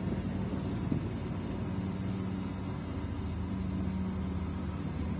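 L&T 300 hydraulic excavator's diesel engine running steadily under load as it digs and lifts a full bucket of earth. It is a continuous low drone that grows a little stronger in the second half.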